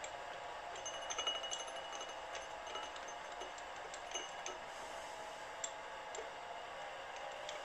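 Faint light metallic clinks and a few sharp ticks over a low steady machine hum, as the freshly cut 49-tooth gear on the milling machine's dividing head is moved clear of the gear cutter. The clinks cluster about a second in, with scattered ticks later.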